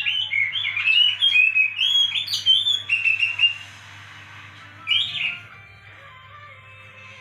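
Oriental magpie-robin (kacer) song used as a lure to prompt a caged bird to sing: a fast run of varied whistled notes for the first three and a half seconds, then one short phrase about five seconds in. A steady low hum lies underneath.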